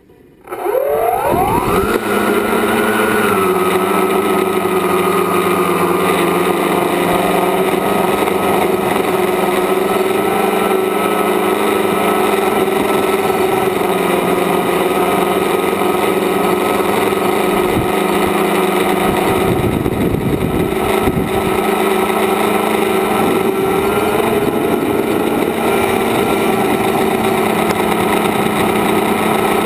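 A tricopter's electric motors and propellers spin up with a rising whine about half a second in as it lifts off. They then run at a steady multi-pitched whine in flight, loud in the onboard camera's microphone.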